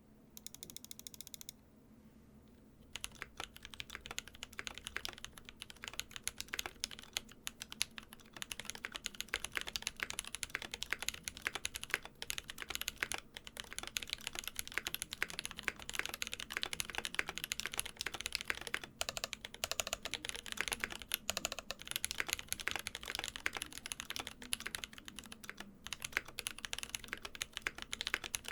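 Typing on a custom mechanical keyboard with Durock Koala tactile switches in an aluminium plate and PBT keycaps: a dense, continuous stream of sharp key clacks, starting about three seconds in.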